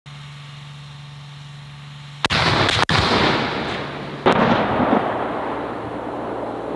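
Artillery fire from wheeled self-propelled howitzers: two heavy booms about two seconds apart, each trailing off in a long rolling rumble. Before the first boom there is a low steady hum.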